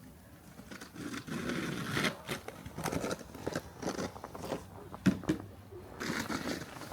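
Footsteps crunching in snow, about two to three steps a second, starting about a second in.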